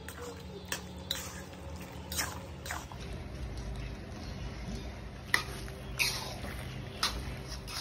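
Metal spatula stirring thick, saucy pasta in a steel pan: wet squelching with sharp clinks and scrapes of metal on the pan every half second to a second, over a steady low hum.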